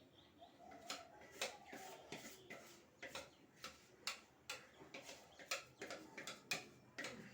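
Faint, light clicks or taps, fairly even at about two a second.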